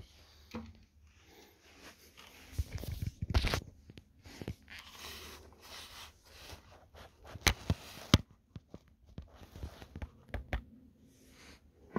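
Handling noise from a phone being moved about, with rubbing and rustling against fabric and scattered knocks. Two sharp clicks a little past halfway are the loudest sounds.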